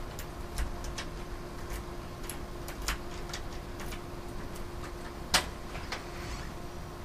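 Irregular clicks and rattles of a front door's lock and handle being worked, with the loudest, sharpest click about five and a half seconds in.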